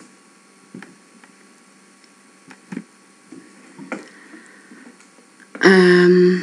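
A few faint computer-mouse clicks over quiet room tone, then near the end a loud, steady low-pitched tone lasting under a second.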